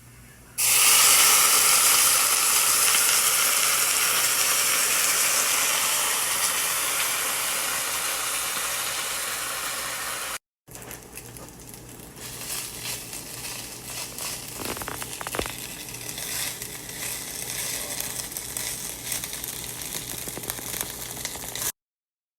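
Food frying in a hot pan: a loud sizzle starts suddenly about half a second in as the food meets the hot oil and slowly dies down. After a short break, a quieter sizzle crackles and pops.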